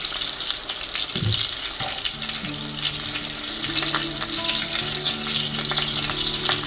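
Chicken-and-zucchini patties sizzling in hot oil in a frying pan, uncovered, with scattered light clicks of a utensil turning them against the pan. A steady low hum runs underneath from about two seconds in.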